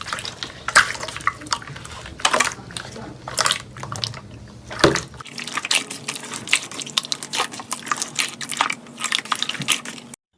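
Slime being squished and pressed, giving irregular wet clicks and pops; the sound cuts off suddenly just before the end.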